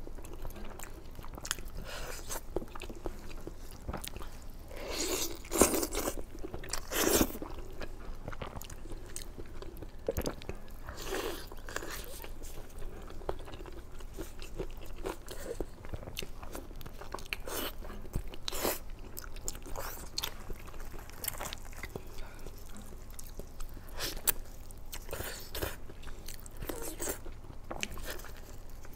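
Close-miked biting and chewing of kiln-roasted chicken, with repeated crunches; the loudest bites come about five to seven seconds in.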